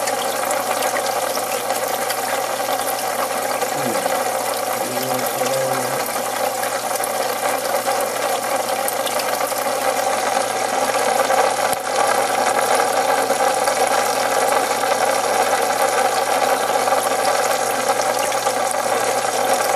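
Aquarium filter or pump equipment running: a steady mechanical hum with water noise, unchanging throughout.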